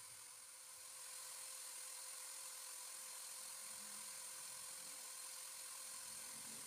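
Electric drill motor running steadily with a faint even whine, spinning a fishing float on a needle while sandpaper is held against it to shape it. It gets a little louder about a second in.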